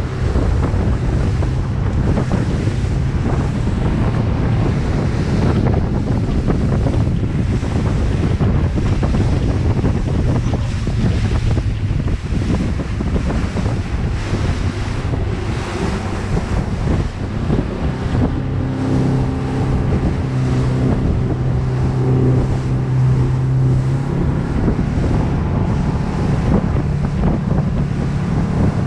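Motorboat running at speed: a steady engine drone under heavy wind buffeting on the microphone and the rush of the hull cutting through choppy water. The engine tone stands out more clearly for a few seconds past the middle.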